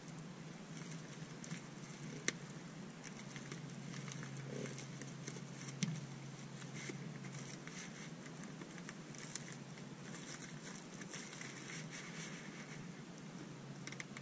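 Plastic-and-card packaging of a GoPro wrist mount being handled and pried open: soft crinkling and rustling, with two sharp snaps about two and six seconds in.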